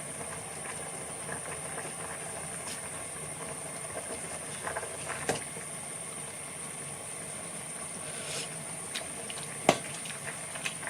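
A pan of spicy rice cakes in chili sauce hissing and simmering on the stove, with a few sharp clicks of a utensil, the loudest near the end.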